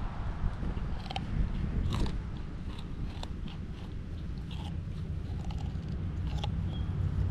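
A cocker spaniel chewing a raw carrot: a run of irregular, sharp crunches as its teeth bite through the carrot.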